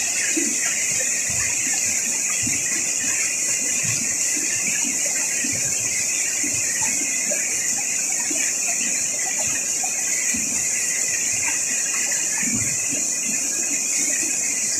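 Steady hiss and rush of river water heard underwater, with scattered faint low knocks.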